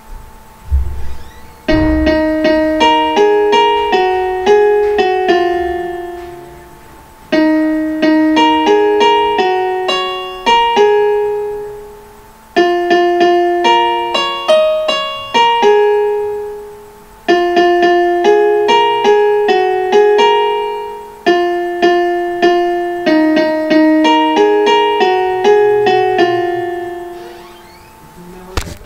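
Piano app on a smartphone, keys tapped one at a time to play a simple melody in four short phrases with brief pauses between them, each note striking and fading like a piano.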